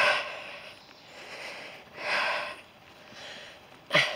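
A person breathing hard while walking uphill: three heavy breaths about two seconds apart, with quieter breaths between them.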